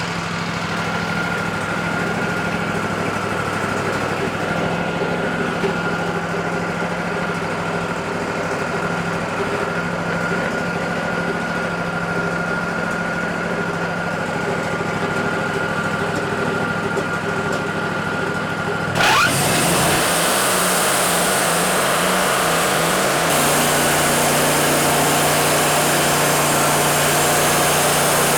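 Wood-Mizer LT40 band sawmill's engine running steadily, then revving up sharply about two-thirds of the way in as the band blade is engaged. It runs on louder and with more hiss, stepping up once more a few seconds later.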